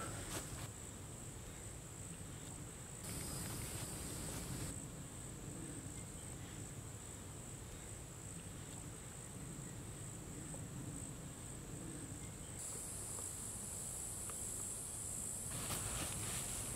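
Steady high-pitched chorus of insects, swelling briefly a few seconds in and growing louder for the last few seconds, over a low steady background rumble.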